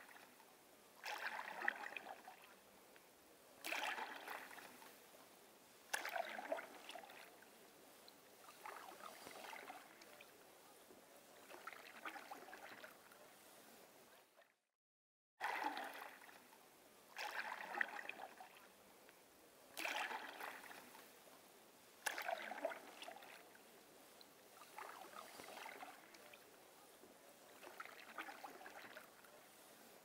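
Canoe paddle strokes in calm lake water: a splash and swirl every two to three seconds, each fading out before the next. The sound drops out for about a second halfway through.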